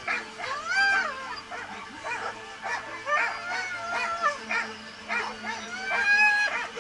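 Dog whining and yipping in a rapid string of high cries that rise and fall in pitch, keyed up and straining to run at a race start.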